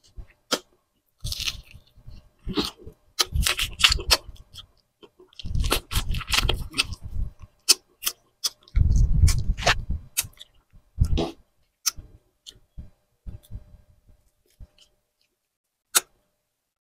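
Close-miked chewing and crunching of grilled tuna jowl eaten by hand, with sharp mouth clicks and smacks. The bursts come thickly in the first ten seconds or so, then thin to scattered clicks.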